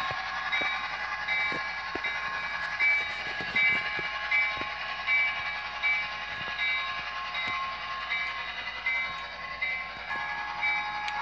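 Toy model freight train running on plastic track: a steady small-motor whine with a regular pulsing tone repeating under a second apart, and scattered clicks as the wheels run over the track.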